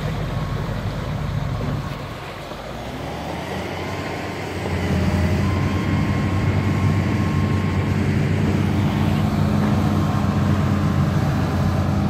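Amphibious excavator's diesel engine running steadily, a low drone that steps up louder about five seconds in and then holds.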